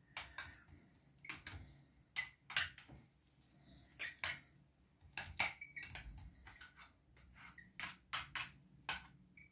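Spoon spreading and pressing grated boiled beetroot inside a metal ring mould: quiet, irregular clicks, taps and scrapes as the spoon works the mash and knocks against the mould.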